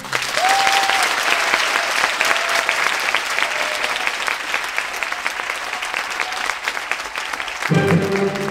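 Audience applauding, a dense patter of clapping, with a brief shout about half a second in; orchestral music starts again near the end.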